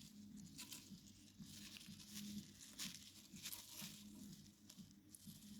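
Faint scratching and rustling of a pet hamster scrabbling about, in short crackly scrapes.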